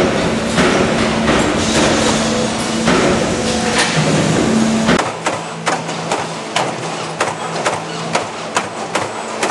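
Coil-fed CNC turret punch press running and punching. Dense machine noise with a steady hum and scattered knocks for the first half, then sharp, evenly spaced punch strokes about four a second over a lower hum.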